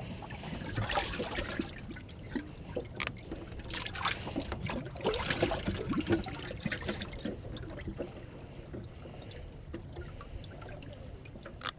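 Water splashing and trickling in a bass boat's livewell as a bass is handled in it, in small irregular sloshes.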